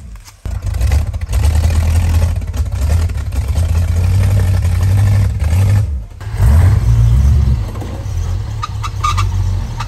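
Off-road vehicle's engine running and revving: a loud, low drone that drops out briefly just after the start and again about six seconds in.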